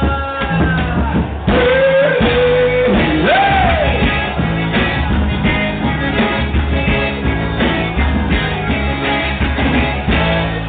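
Live forró band playing with a singer: accordion, zabumba, triangle, bass, guitar and drum kit over a steady beat, with a sung note held and bent from about a second and a half in.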